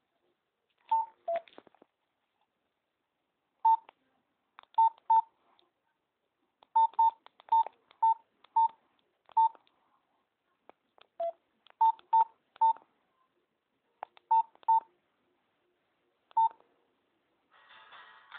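Nokia X2-02 mobile phone keypad tones: a string of short, same-pitched beeps, each with a key click, at uneven spacing as its keys are pressed; two of them are lower in pitch. Near the end a ringtone starts playing.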